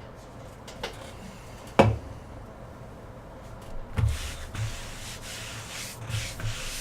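A sharp click about two seconds in, then rustling and rubbing with a few soft thumps from about four seconds on, the sound of things being handled on a tabletop.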